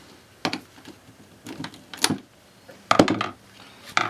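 Scattered sharp metal clicks and clinks, with a quick cluster about three seconds in, as a flathead screwdriver works a part loose on an AR-15.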